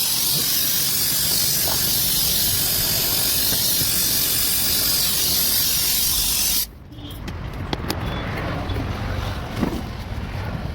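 Gas welding torch flame hissing steadily and loudly, cutting off abruptly about two-thirds of the way through. After that, a quieter low rumble with a few sharp clicks.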